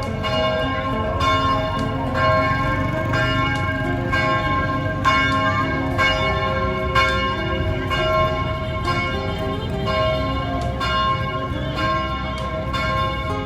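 Several church bells ringing in turn, struck over and over about once a second, each stroke ringing on into the next at a different pitch.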